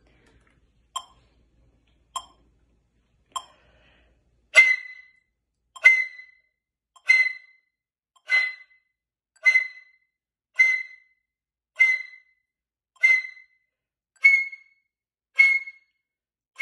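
A metronome ticking slowly at 50 beats a minute, then a concert flute playing short, sharp high-register notes, one on each tick. Each note is a hard 'ja' breath attack pushed from the abdomen, a drill for opening the throat; the last two notes are slightly higher.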